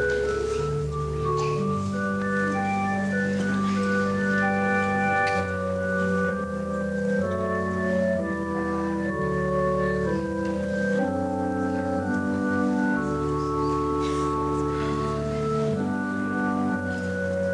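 Organ playing slow, sustained chords over long held bass notes, the chords shifting every second or two.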